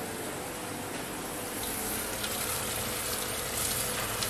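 Spiced tomato-and-yoghurt masala sizzling steadily in a kadai on a gas burner, as the oil separates from the gravy.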